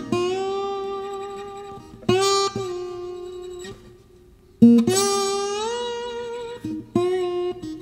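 Background music on acoustic guitar: slow, sparse notes plucked and left to ring out, with one sliding up in pitch about halfway through.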